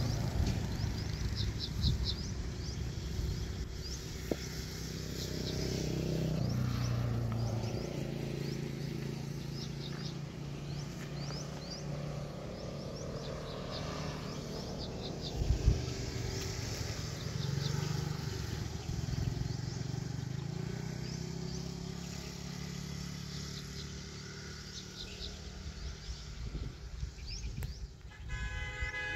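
Road traffic passing close by, engines and tyres swelling and fading as vehicles go past, with small birds chirping. A single sharp thump comes about fifteen seconds in, and a vehicle horn starts sounding steadily near the end.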